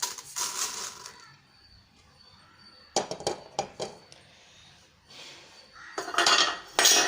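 Roasted chana dal being scraped out of a kadai with a metal spoon and tipped onto a plate: a short rattling pour near the start, then spoon clinks and scrapes against metal, loudest near the end.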